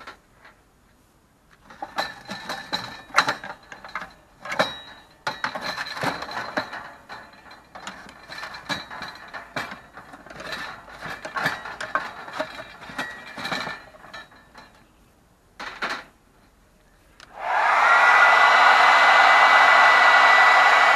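Irregular clattering and clinking for much of the clip. Then, a few seconds before the end, an old hair dryer switches on, spins up with a short rise in pitch, and runs steadily with a high whine over the rush of air.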